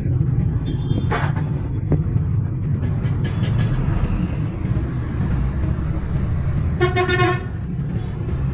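Steady low rumble of traffic with a vehicle horn giving one short toot about seven seconds in, and a few scattered clicks.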